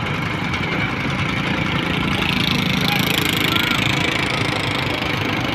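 Fishing boat's engine running steadily with a fast low pulsing, under a hiss that swells for a couple of seconds in the middle.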